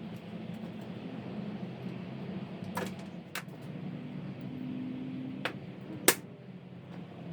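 A few sharp clicks and knocks from hand work on a workbench, the loudest about six seconds in, over a steady low rumble.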